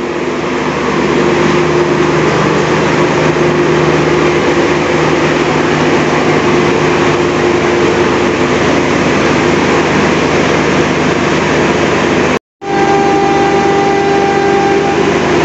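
Passenger train's engine running steadily with a constant hum at the platform. The sound cuts out for a moment about three-quarters of the way through, then resumes as a similar steady hum with a higher whine.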